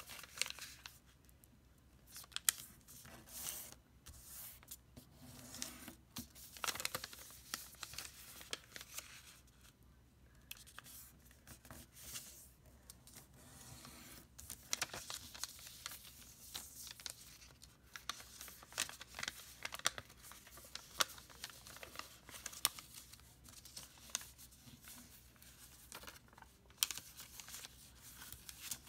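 A sheet of origami paper, brown on one side and white on the other, being folded and creased by hand. It gives an irregular rustling and crinkling, with short crisp scrapes as the folds are pressed flat.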